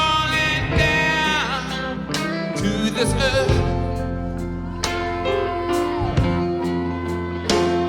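Live rock band playing a slow gospel-soul ballad, with guitar, sustained chords and a low bass line. Singing with sliding notes comes in over the band.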